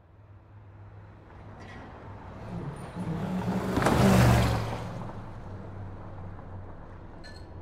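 Road traffic, with one motor vehicle passing close by. Its engine hum and tyre noise swell to a loud peak about four seconds in, then fade back into the steady traffic rumble.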